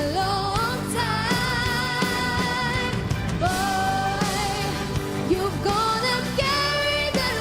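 Music: a woman singing long held notes with a wavering vibrato over band accompaniment.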